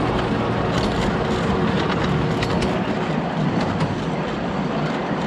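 Ride-on miniature train running along its track: steady running noise with occasional sharp clicks from the wheels.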